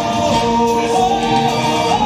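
Show tune from a stage musical: several singers hold long notes, sliding from one pitch to the next, over the backing music.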